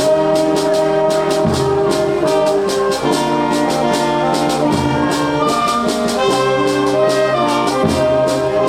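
High-school wind band playing live: brass holding sustained notes and chords that change every second or so, over a steady percussion beat.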